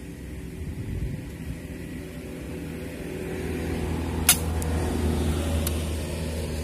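A motor vehicle's engine running, growing louder through the middle and easing off again, with one sharp click about four seconds in and two faint ones after it.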